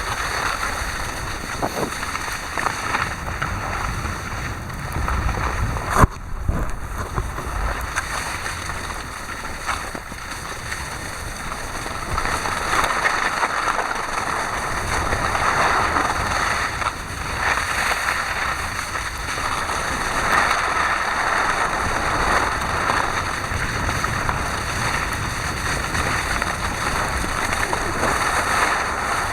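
Wind buffeting the microphone and skis hissing over snow on a downhill run, with one sharp knock about six seconds in.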